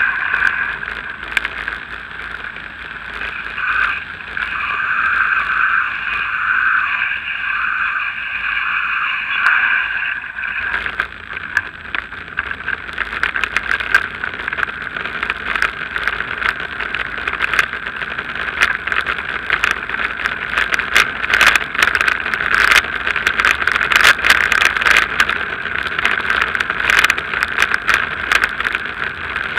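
Riding noise picked up by a bicycle-mounted action camera: steady tyre and wind noise on the move. From about halfway, once on the road surface, there are many irregular clicks and rattles from the bike and camera mount jolting over the road.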